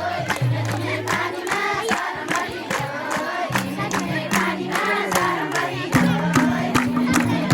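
A group singing a traditional Nepali Teej folk song over music with a steady drum beat and sustained low instrumental tones, with crowd noise mixed in.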